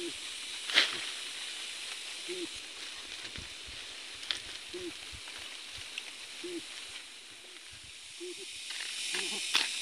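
Soft knocks and scrapes of digging in soil, the sharpest about a second in, over a steady high hiss, with a short low call repeating every second or two.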